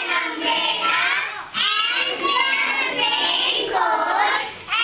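A class of young children singing together in high voices, in phrases with short breaks between them.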